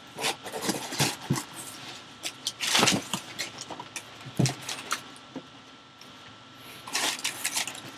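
Cardboard box and packaging being handled and pulled open: irregular rustles, clicks and knocks. The loudest is a scrape about three seconds in, followed by a knock, then a quieter spell before another burst of rustling near the end.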